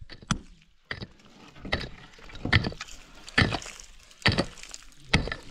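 Repeated heavy striking blows, a little more than one a second, the later ones stronger, like something being chopped or hammered apart.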